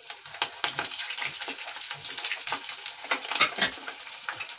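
Poha and cauliflower balls deep-frying in hot oil in an iron kadhai: a steady sizzle full of sharp crackles as fresh balls go into the oil.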